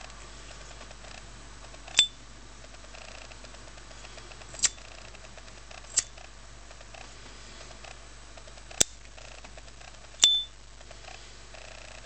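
Dupont lighter's metal lid snapped open and shut: five sharp metallic clicks a second or two apart, two of them ringing briefly with a high, clear ping.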